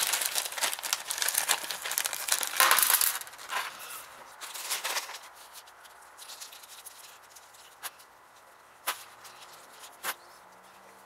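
Plastic parts bag crinkling and rustling for about three seconds as it is handled. Then quieter handling with a few separate sharp clicks of small ratchet parts set down on a steel workbench near the end.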